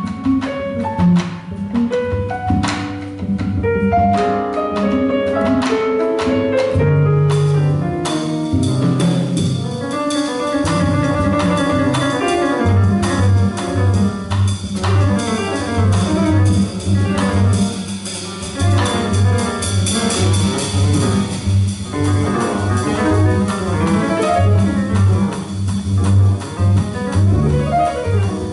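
Live acoustic jazz: grand piano with upright double bass and drum kit. Cymbals join in about eight seconds in, and the bass settles into a steady repeated pulse a few seconds later.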